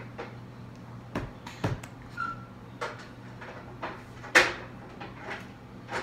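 Scattered light knocks and clunks of household objects being handled, with the loudest clunk about four and a half seconds in, over a steady low hum.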